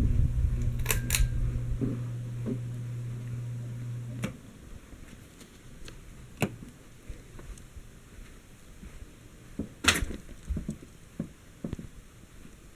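Handheld camera being moved, with handling rumble and several sharp clicks, over a steady low hum that cuts off suddenly about four seconds in.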